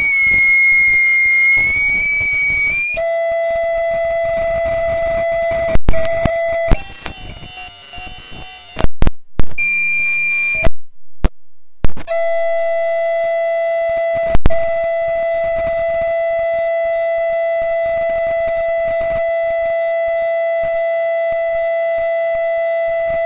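Loud audio feedback howl: a steady high-pitched tone that wavers in pitch at first, then settles into one held pitch. It is broken by several sharp pops in the middle and a brief dropout a little before halfway.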